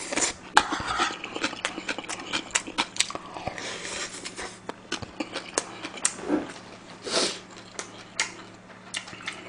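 Close-miked chewing of a mouthful of shrimp fried rice, with many small sharp clicks of mouth and spoon, and two louder breaths about four and seven seconds in.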